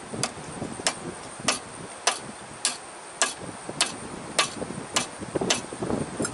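Hand-lever grease gun being pumped into the S-cam bushing's grease fitting: about ten sharp, evenly spaced clicks, a little under two a second.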